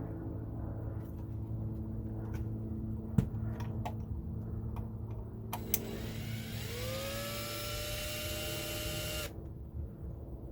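A few sharp clicks and one knock, then about six seconds in a small electric motor spins up with a rising whine. It runs steadily for about three seconds and stops suddenly.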